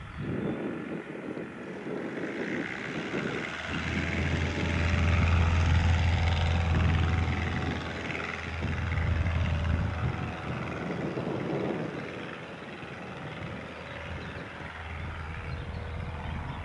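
Cessna 150's four-cylinder Continental O-200 engine and propeller running as the light plane rolls along the runway, growing louder a few seconds in and fading as it heads away.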